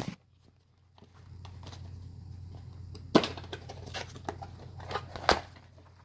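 Handling noises as a box is opened: a few sharp knocks and rustles over a steady low hum, the loudest two about three and five seconds in. The first second is almost silent.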